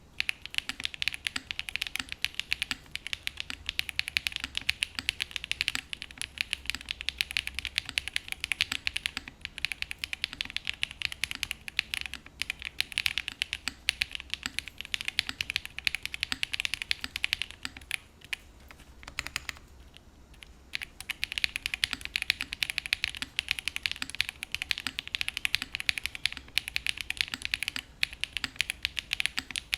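Mechanical keyboard in a Tofu60 2.0 60% case with linear switches being typed on quickly and continuously, a dense run of key clacks that breaks off for about two seconds near the middle before resuming.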